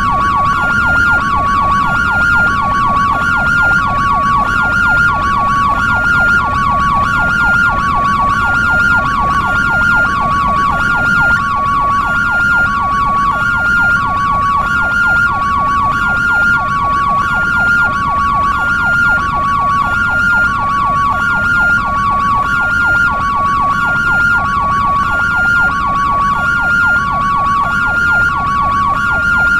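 European ambulance siren sounding hi-lo: two pitches alternating about once a second, layered over a fast, rapidly sweeping yelp, with a low rumble underneath.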